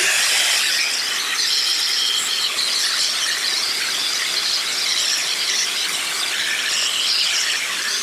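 7MAGIC high-speed brushless hair dryer blowing on speed two, hottest setting, while drying hair. The footage is sped up eightfold, so the airflow hiss and motor whine come out as a high, wavering squeal.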